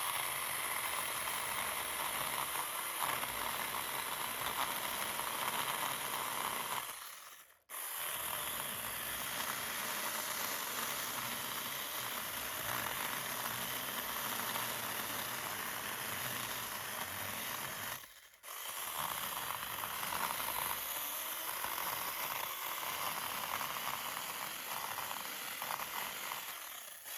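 Handheld battery-powered mini chainsaw running and cutting through a small tree trunk, a steady buzz of the electric motor and chain in the wood. The sound drops out briefly twice and comes back.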